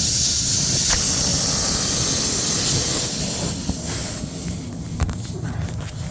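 A loud, steady hiss that fades away after about three and a half seconds, over a low rumble, with a few sharp clicks near the end.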